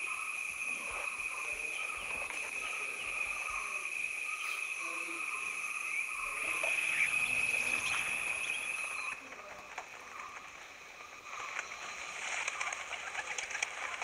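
Forest ambience: bird calls over a steady high-pitched drone that cuts off about nine seconds in.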